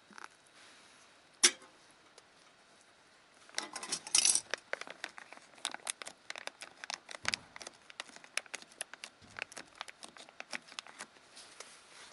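Handling noises: a sharp click, then a burst of rustling and crinkling followed by a long run of irregular quick clicks and taps.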